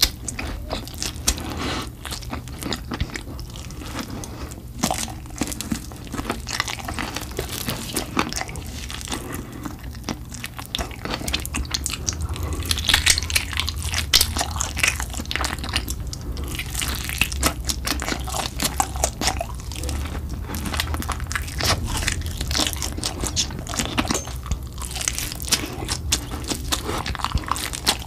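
Close-miked crunching and chewing as someone bites into sauce-coated fried chicken, a dense run of crisp crackles that grows thicker and louder about halfway through.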